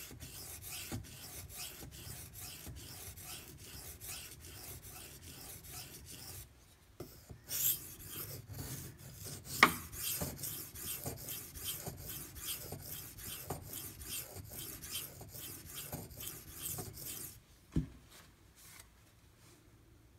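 Knife blade stroked back and forth on a water-soaked Imanishi 400-grit Latte whetstone, a rhythmic rasp of a few strokes a second while a burr is being raised. The strokes pause briefly about a third of the way in, then resume after a sharp click and stop near the end, followed by one more click.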